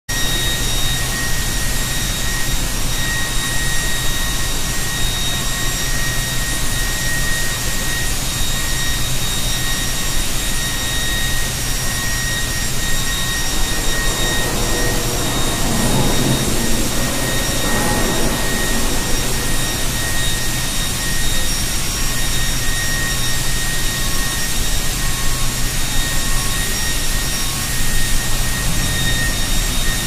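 Basic oxygen furnace (steelmaking converter) roaring steadily as flames pour from its mouth, a loud even rumble with a thin steady high whine over it.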